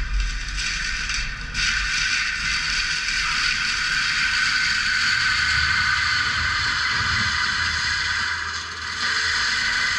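CAT 299D3 compact track loader running and working: a steady mechanical noise that dips briefly about a second and a half in and again near the end.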